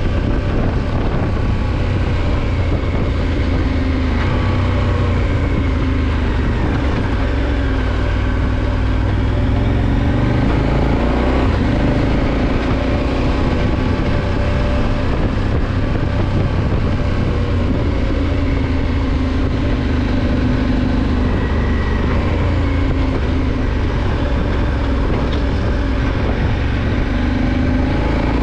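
Adventure motorcycle's engine running steadily while riding a dirt track, its pitch drifting gently up and down with the throttle under a steady rushing noise.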